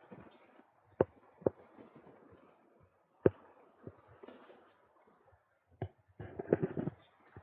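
Faint background noise broken by a few single sharp knocks, irregularly spaced, then a quick run of knocks near the end.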